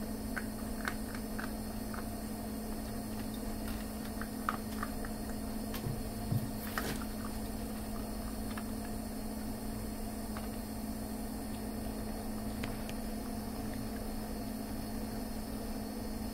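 Steady electrical hum with scattered small clicks and taps as dachshund puppies eat dry kibble from their bowls, with a few louder knocks in the middle.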